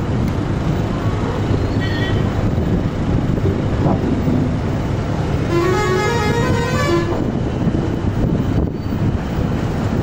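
John Deere 5310 tractor's diesel engine running with a steady low rumble. Midway through, a short tune of horn-like notes steps upward in pitch for about a second and a half.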